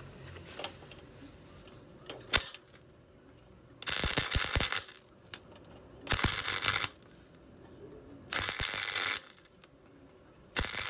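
Welder laying short tack welds on a steel body seam: four crackling bursts, each under a second long, about two seconds apart, starting about four seconds in. A single sharp click comes before them.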